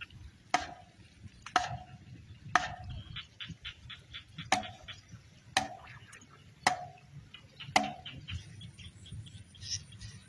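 Sharp, ringing blows struck about once a second, seven or eight in a row, as the fishing spot is hacked and built by hand, with a short run of light rapid ticking between them.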